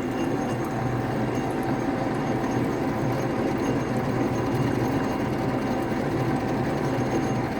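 Metal lathe running steadily, turning a welded-up mixer hook shaft during a light finishing cut of about half a millimetre, with a constant motor and gearbox hum.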